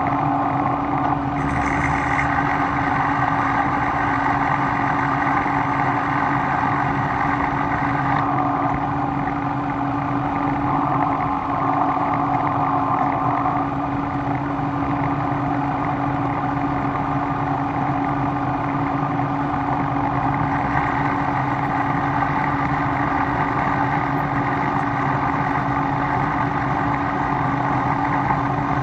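A motor-driven shop machine running steadily, a constant hum with a steady whir over it.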